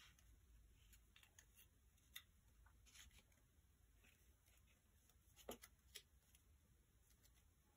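Near silence: quiet room tone with a few faint clicks and rustles of paper card being handled, the clearest about five and a half seconds in.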